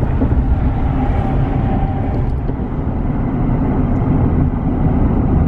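Road noise inside a car's cabin at highway speed: a steady low rumble of tyres and engine.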